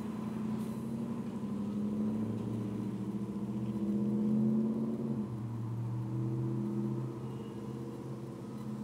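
A motor vehicle's engine passing, its low, steady note building to its loudest about four and a half seconds in, then dropping lower in pitch and easing off.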